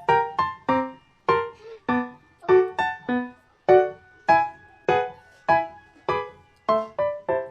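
Background music: a soft piano-like melody of single notes, each struck and fading, about two or three notes a second.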